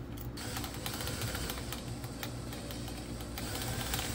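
Irregular ratcheting clicks and rattling as a cordless drill's chuck is tightened onto the shaft of a drill-mounted mini chainsaw attachment, starting about half a second in.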